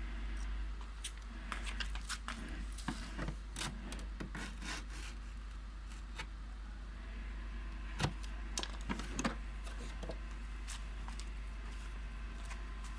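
Handling noises from unpacking a cordless circular saw: scattered clicks, rubs and light knocks of the tool and its packaging, with a sharper knock about eight seconds in and another pair shortly after.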